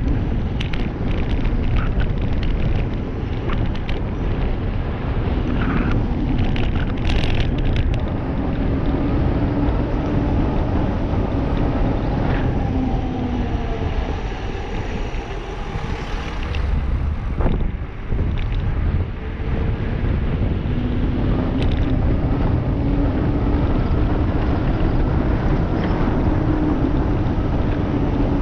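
Wind rushing over the microphone on a fast mountain-bike descent of a paved road, with the knobby tyres humming on the asphalt in a tone that rises and falls with speed. An oncoming car passes about halfway through.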